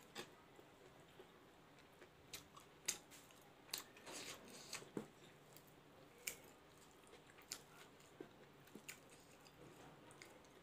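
Faint eating sounds: scattered soft clicks and smacks of chewing, along with fingers mixing rice and curry on a wooden board.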